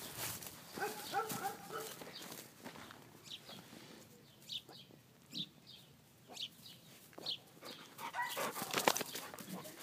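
Bernese mountain dog puppies moving over dry grass, their paws rustling and crunching, with short high-pitched yips about a second in and again near the end.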